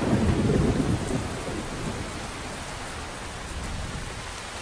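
Heavy rainstorm: a downpour with a low rumble of thunder that dies away about a second in, leaving the steady hiss of rain.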